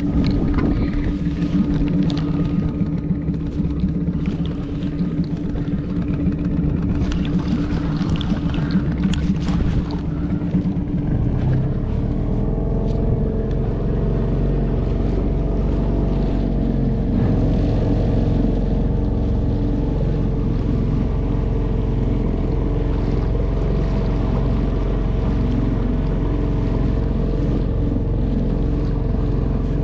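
Small outboard motor running steadily as the inflatable boat moves under way, with water washing along the hull. About twelve seconds in, the engine note shifts and a steady low rumble comes in.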